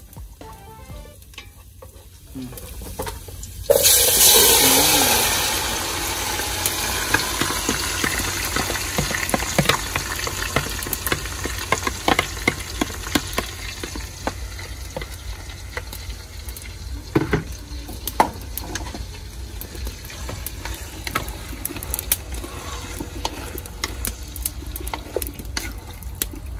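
Muscovy duck offal going into a hot metal pot, sizzling loudly all at once about four seconds in, then easing to a steady sizzle as it is stirred, with chopsticks clicking against the pot.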